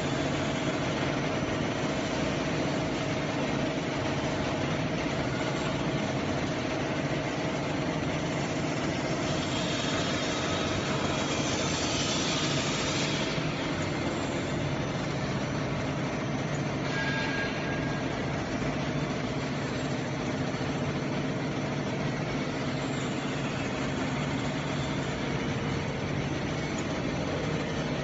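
Three-dimensional swing mixer running, its stainless-steel barrel swinging and tumbling, with a steady mechanical hum from its drive. A brief hiss rises and fades about twelve seconds in.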